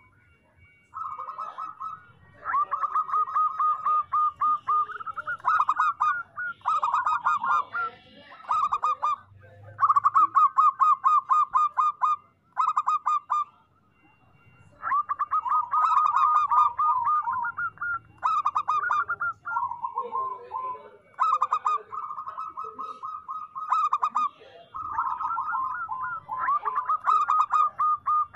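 Zebra doves (perkutut) cooing in phrases of rapid staccato notes, each phrase one to two seconds long, repeated with short gaps and now and then overlapping.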